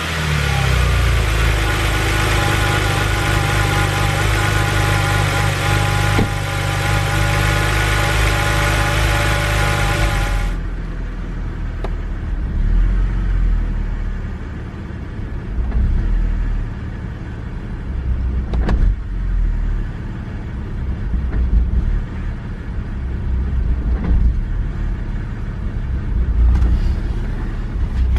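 BMW N52 3.0-litre straight-six idling just after starting, loud and steady at first, then, from about ten seconds in, heard from inside the cabin as a quieter, uneven low rumble. It is the rough idle that a new crankcase breather and hoses have not cured, a very common N52 problem.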